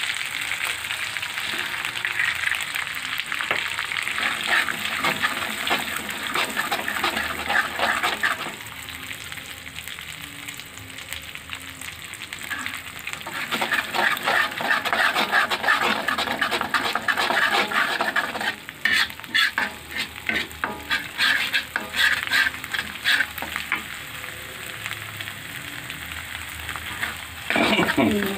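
An egg frying and sizzling in hot oil in a wok while a spatula stirs and scrapes it into scrambled egg. The sizzle eases for a few seconds about a third of the way in, and quick scraping strokes come about two-thirds of the way through.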